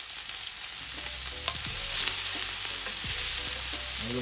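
Diced onion sizzling in hot olive oil in a frying pan, stirred with a wooden spatula that knocks against the pan a few times.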